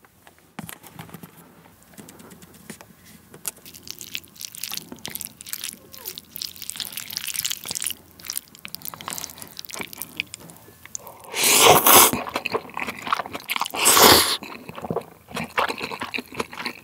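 Wooden chopsticks stirring ramen noodles into tuna mayonnaise in a ceramic bowl: wet squishing with many small clicks against the bowl. Then, about two-thirds through, two loud slurps of noodles, followed by chewing.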